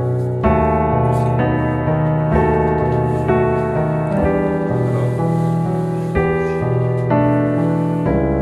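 Background piano music: sustained chords that change about once a second.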